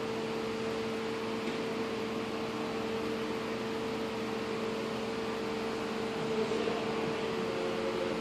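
Steady mechanical hum and even hiss of a ventilation fan, with no change in level.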